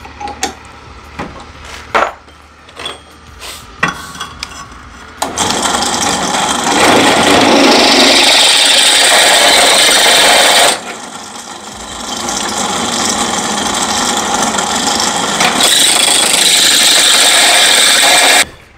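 Bench drill press boring through a hard steel pin with an 8 mm bit. First a few clicks and knocks of handling, then the drill cuts in loudly about five seconds in. It drops back briefly near the middle, builds again and stops abruptly near the end.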